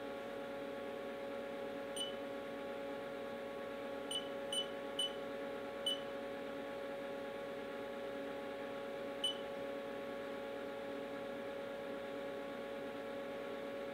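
Haas CNC mill control keypad beeping: six short, high beeps, one per key press, spread unevenly with a quick run of three about four seconds in. A steady low hum runs underneath.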